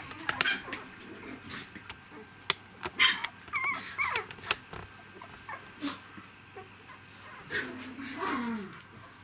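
Three-week-old poodle puppies whimpering, with short wavering high squeaks in the middle and a lower, drawn-out cry near the end. Scattered sharp clicks run through it.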